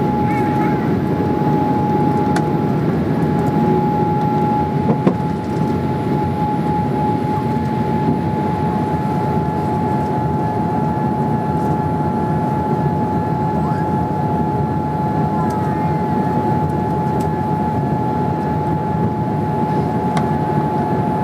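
Cabin noise in a Boeing 787-8 climbing after takeoff: a steady rush of engine and airflow noise from its Rolls-Royce Trent 1000 engines, with one steady high tone running through it. There is a brief knock about five seconds in.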